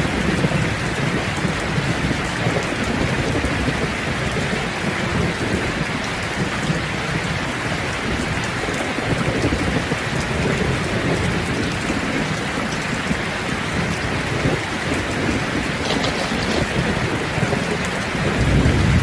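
Steady heavy rain falling on a surface, a dense even patter, with a low rumble swelling near the end.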